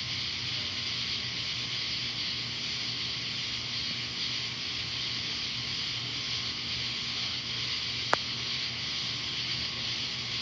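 Steady, even night-time hiss, with a single sharp click about eight seconds in.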